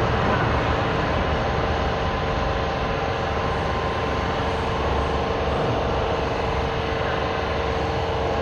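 Air compressor running steadily, a constant mechanical drone with an unchanging hum.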